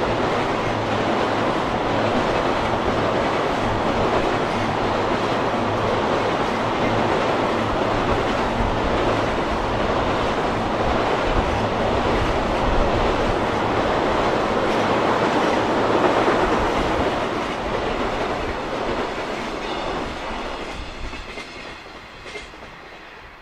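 Long freight container train running at speed over a steel girder railway bridge: a steady rumble and clatter of wagon wheels on the rails, fading away over the last several seconds as the end of the train passes.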